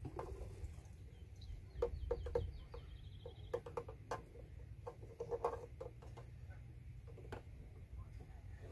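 Gasoline gurgling irregularly into a nearly full plastic gas can from a liquid transfer pump's outlet tube.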